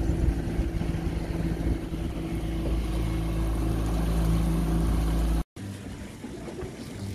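Boat's outboard motor running steadily under way, a low, even drone. It cuts off abruptly about five and a half seconds in, leaving a much quieter background.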